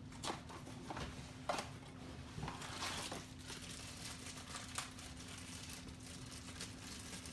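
Small cardboard box being handled and opened, with crinkling and tearing of the packaging around a Funko Mystery Mini figure. Scattered light clicks and rustles, with a louder crinkling spell about three seconds in.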